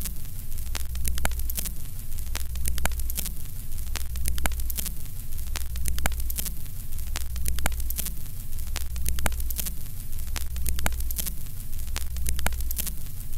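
Old-film noise: a steady low hum that swells about every second and a half, under constant crackling static and scattered sharp pops.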